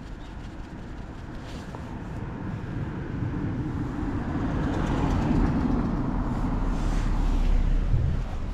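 Car driving past on the road: a low rumble of tyres and engine that swells over several seconds and falls away near the end.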